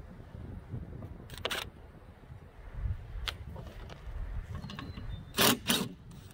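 Sharp clicks and clacks of tools and car parts being handled, with a pair of louder ones close together near the end, over a steady low rumble.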